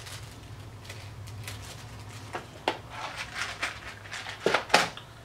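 Small clear plastic parts bag being handled and opened, with crinkling and a few short sharp clicks, loudest about four and a half seconds in, over a low steady hum.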